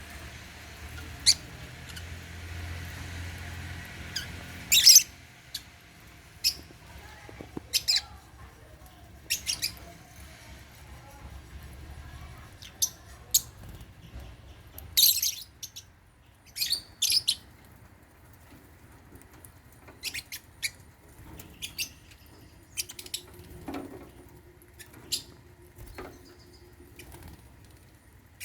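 African lovebirds chirping: short, sharp, high calls at irregular intervals, the loudest about five and fifteen seconds in.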